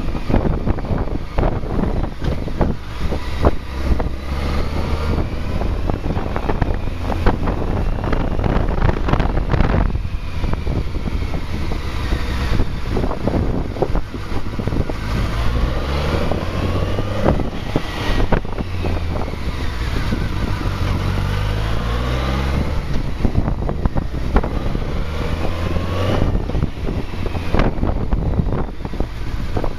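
BMW K1200R Sport's inline-four engine running at low revs as the motorcycle rides slowly, its pitch rising and falling several times with throttle and gear changes. Wind buffets the microphone throughout.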